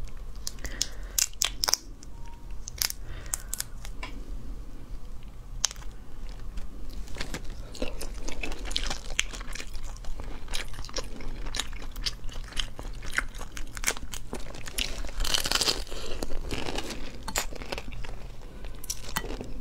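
Close-miked crunching and cracking of cooked shrimp shells as they are broken open by hand and bitten and chewed, with sharp cracks scattered throughout and denser spells of crunching near the middle and about three-quarters of the way in.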